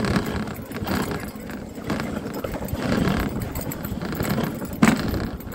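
Dog sled moving along a packed-snow trail: the runners scrape and hiss over the snow with uneven, rhythmic bumps, and a sharp knock near the end.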